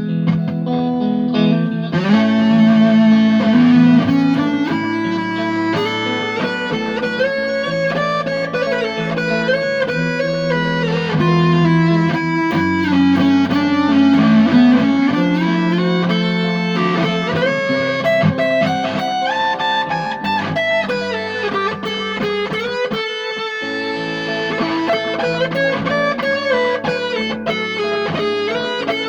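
Electric guitar played through a fuzz pedal: a melodic line of sustained notes moving up and down over held low notes.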